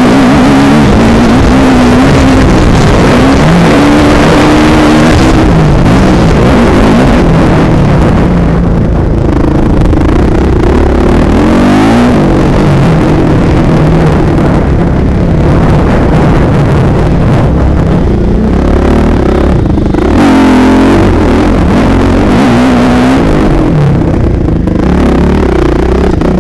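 Motocross bike engine heard from an onboard camera, revving up and down repeatedly as the rider throttles on and off around a dirt track. A loud rushing noise of wind on the microphone runs under it.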